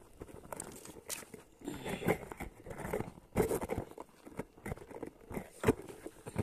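A bundle of dry firewood sticks being handled: irregular crunching, cracking and knocking of branches against each other, with a sharper knock a little before the end.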